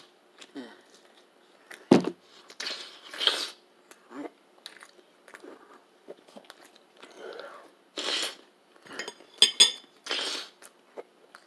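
Close-up chewing and mouth sounds of someone eating ground pork, with scattered sharp clicks and a single knock about two seconds in.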